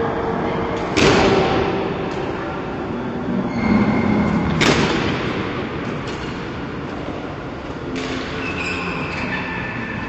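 Badminton rackets smashing the shuttlecock: two sharp, echoing hits, about a second in and near the middle, over the steady rumbling noise of a busy indoor badminton hall.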